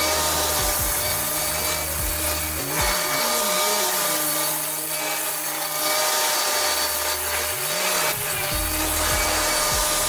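Excavator-mounted forestry mulcher head grinding through brush and saplings: a continuous, dense grinding and rasping noise.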